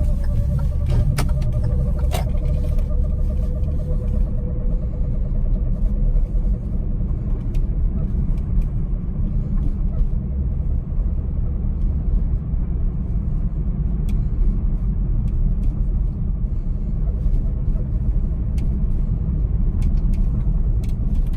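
Hyundai Creta 4WD on the move, with a steady low rumble of road and drivetrain noise. Over the first few seconds a whistle runs above it, falling slightly in pitch, and fades out about four seconds in.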